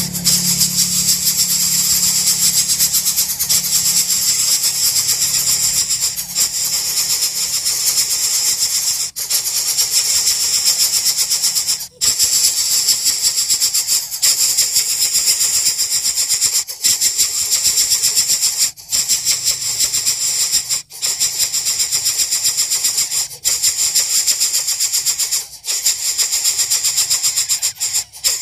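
Greater coucal nestlings begging for food: a loud, continuous high-pitched rasping hiss made of rapid pulses, broken by short pauses every two seconds or so.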